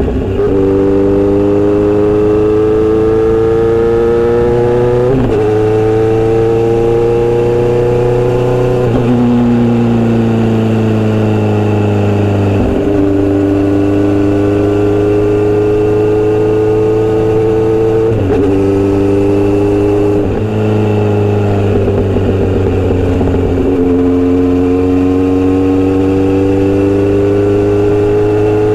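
Inline-four motorcycle being ridden. The engine note climbs under throttle and drops back several times at gear changes, and sags for a few seconds while the bike eases off about nine seconds in.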